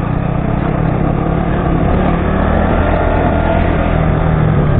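KTM Duke 200 motorcycle's single-cylinder engine running steadily at low revs.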